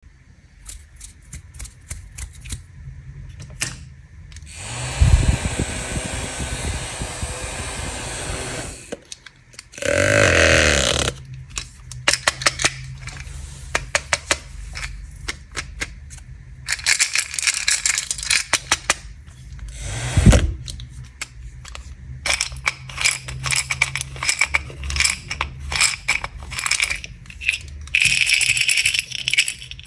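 Close-up handling of plastic candy and toy packaging: crinkling and rustling with many sharp clicks and taps, a longer stretch of steady crinkling about five seconds in, and a brief squeaky scrape around ten seconds.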